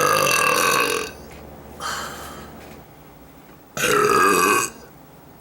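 A woman burping loudly: a long burp of about a second at the start, a shorter, softer sound about two seconds in, then a second loud burp of about a second near the end.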